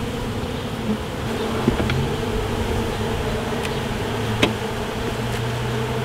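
A honey bee colony buzzing in a steady hum around an opened hive, the bees stirred up by the frames being lifted. Two sharp clicks cut through it, the stronger one a little past the middle.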